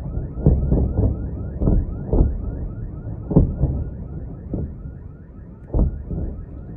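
Distant explosions, about six sharp booms at irregular intervals with a short echo after each, over an alarm's rapid rising chirp repeating about four times a second.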